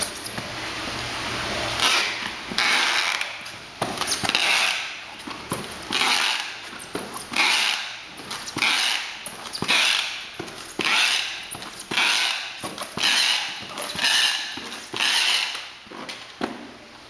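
A run of short rasping, creaking mechanical strokes, a little more than one a second, during fish-packing work.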